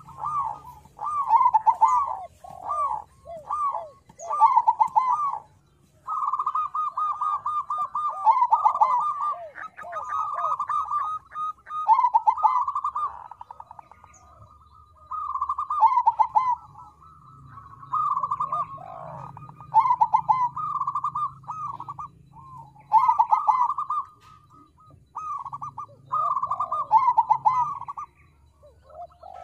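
Zebra dove (perkutut, a local × Bangkok crossbred) singing its cooing song: rapid runs of short rolling coo notes in phrases a few seconds long, one after another with brief pauses.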